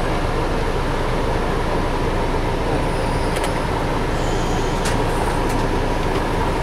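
Steady diesel engine and running noise heard from inside a Mercedes-Benz-chassis double-decker coach moving slowly, with a faint steady hum and a couple of light clicks midway.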